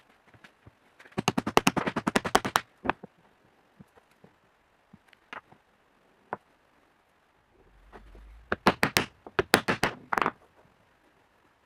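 Two bursts of rapid, light hammer taps, about nine a second, driving a ball bearing and a shaft into a wooden bearing block, with a few single knocks between the bursts.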